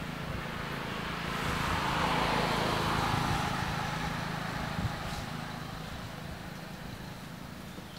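A motor vehicle passing by, its noise swelling to a peak two to three seconds in and then fading away over a low steady hum.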